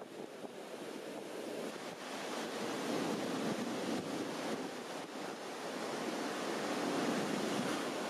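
Waves breaking and washing up the beach in a strong wind, with wind buffeting the camera's built-in microphone. The surf gets louder about three seconds in and again near the end.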